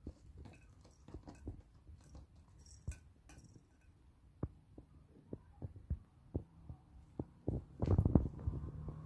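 Soft, irregular thumps and fabric rustling as a kitten pounces and bats at a hanging T-shirt on a rug, with a louder run of thumps about eight seconds in.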